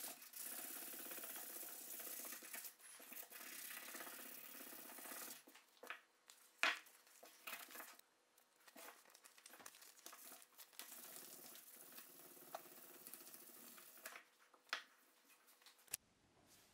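Fine P1200 sanding disc rubbed by hand over a steel axe head: a steady scratchy rasp for about five seconds, then a sharp knock a little later. Quieter rubbing follows, with another sharp knock near the end.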